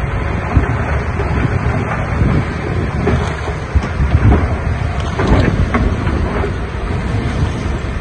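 Diesel engine of heavy earthmoving equipment (bulldozer or dump truck) running with a continuous low rumble, with wind buffeting the microphone; the noise swells a few times around the middle.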